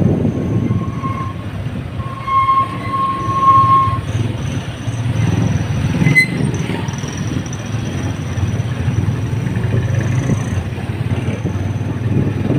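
Motor tricycle riding along a street: steady low engine and road rumble, with a short horn beep about a second in and a longer beep from about two to four seconds in.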